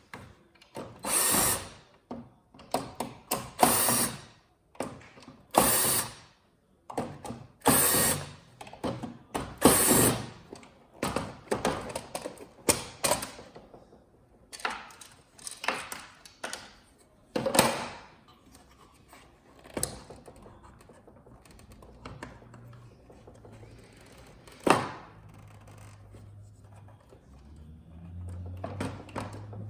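Taking apart an old flat-screen TV to free its second speaker: a dense run of short scrapes and clatters of plastic and metal parts, thinning out after about eighteen seconds, with a sharp knock near the end.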